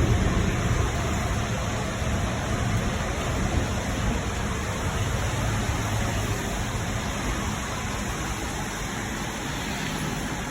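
Distant thunder rumbling low over a steady hiss, swelling just after the start and again midway before fading.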